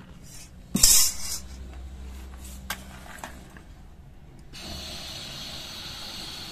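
A loud metal clank about a second in as the iron kadai is lifted off the burner, a couple of light clicks, then the LPG stove's gas burner catches from a match and hisses steadily from about two-thirds of the way through.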